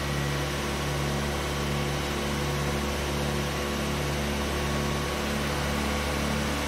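Newly rebuilt Land Rover 2.25 litre petrol four-cylinder engine running steadily at a fast idle of about 2000 rpm, held up by the early stage of the choke on its first start-up. Its rocker clearances are a fraction wide, the cause of a tapping from the valve gear.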